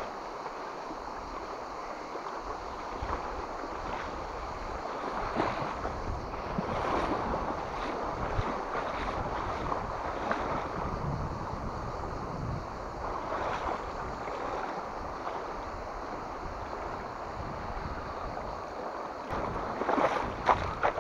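Shallow river rushing steadily over stones, with wind on the microphone. Near the end come a few sharp crunches on the stones of the gravel bank.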